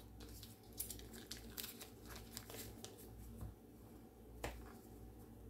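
Faint crinkling and rustling of the paper wrapper being peeled back from a stick of margarine, with one slightly sharper click about four and a half seconds in.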